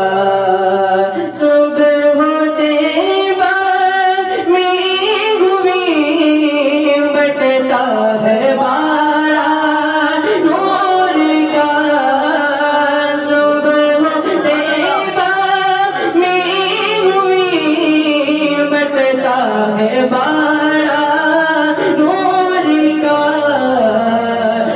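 A young man's voice singing a naat, a devotional poem in praise of the Prophet Muhammad, into a microphone. He sings long held notes that slide and ornament from pitch to pitch, with short breaks between phrases and no instruments.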